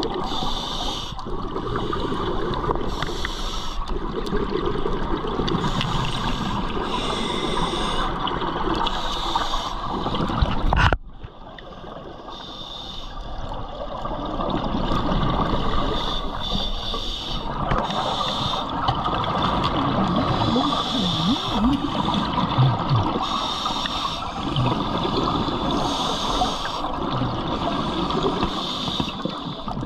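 Scuba regulator breathing underwater: the hiss of each inhale and the bubbling rush of each exhale, repeating every couple of seconds. About a third of the way in the sound cuts off sharply and stays quieter for a few seconds before the breathing returns.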